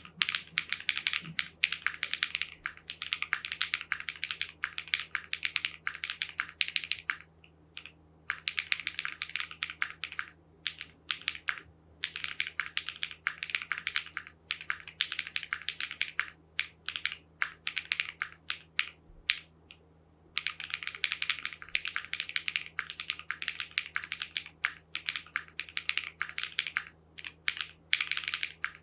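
Typing on a custom mechanical keyboard, a Tofu 2.0 with Zaku switches, aluminium plate, silicone bowl case and foam dampening: rapid runs of keystrokes in bursts of several seconds, broken by short pauses.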